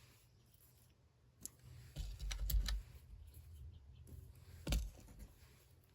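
Light clicks and taps of small metal lock parts being handled as a deadbolt cylinder is rekeyed, with new pins being loaded into the plug: a few single clicks and a short cluster of them.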